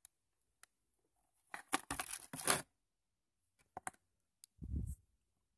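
Handling noise close to the microphone: about a second of scratchy rustling and scraping, a few sharp clicks, then a short low bump near the end.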